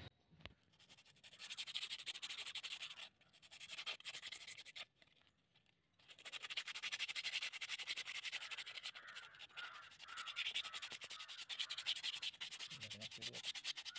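Honda Dio scooter's rear drum-brake shoe being scrubbed with sandpaper, quick rubbing strokes in three spells with short pauses, the longest from about six seconds on. The shoe is being cleaned of rust and dust to cure a squeal when braking.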